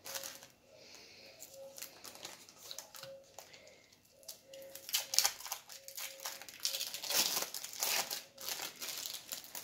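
Plastic cheese-slice packaging crinkling as it is handled and opened, in irregular bursts that are loudest about five seconds in and again between seven and eight seconds.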